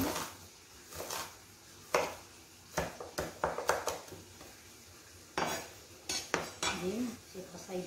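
Kitchen knife chopping an onion on a wooden cutting board: sharp, irregular chops, single strikes at first, then a quick run of several about three seconds in, and another few about two seconds later.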